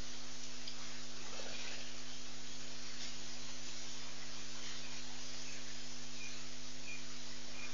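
Steady hiss with a constant electrical hum from an outdoor live-webcam microphone feed.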